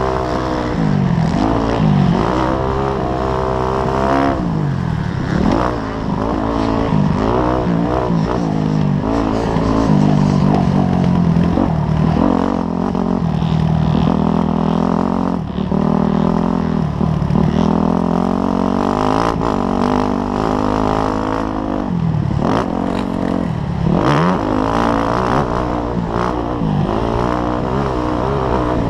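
Dirt bike engine under hard riding on a motocross track, revving up through the gears and dropping off again and again as the rider shifts, brakes and accelerates through turns, heard from the rider's helmet.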